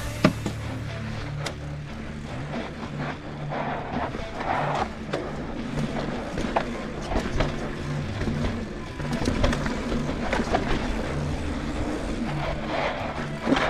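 Mountain bike riding down a dirt singletrack: tyres rolling over dirt and rocks, with frequent clicks and rattles from the bike and wind on the helmet camera's microphone, over low background music.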